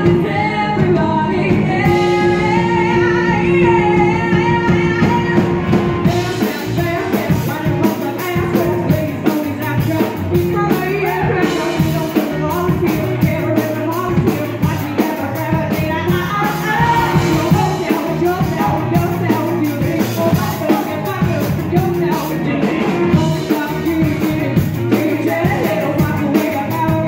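Live rock band with a horn section playing loud and steady: electric guitar, bass, drums, trumpet, trombone and saxophones, with lead vocals over them.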